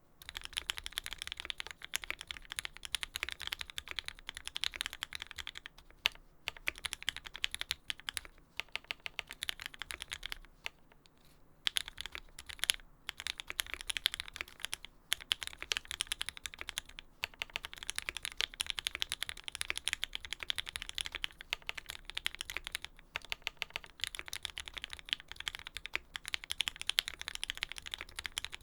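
Steady fast typing on a custom mechanical keyboard with lubed Tealios V2 linear switches (Cherry black top housings), an aluminium plate and GMK keycaps: a dense run of keystroke clacks, broken by short pauses about six seconds in and again around eleven seconds.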